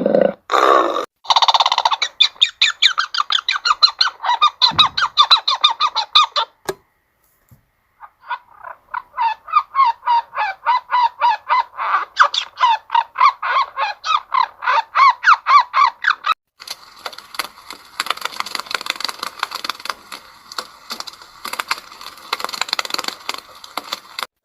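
Birds calling in fast runs of short repeated notes, about seven or eight a second, in two long stretches with a brief pause between them. From about two-thirds of the way in, the calls change to a denser, noisier chatter.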